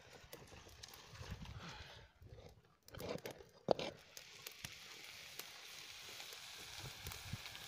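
A metal kadai holding raw pork being set down and settled on a stone wood-fire stove, with low knocks and scrapes and one sharp clink about three and a half seconds in. After that comes a faint steady crackle of the freshly lit fire of sticks and palm fronds.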